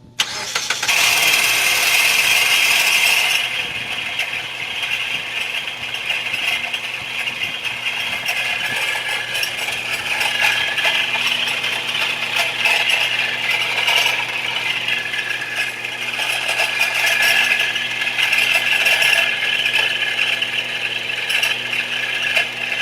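Mitsubishi ASX engine starting and then idling with a loud, steady metallic rattle. It is the noise that comes on some starts and stops as soon as the engine is first revved; a workshop could not find its cause.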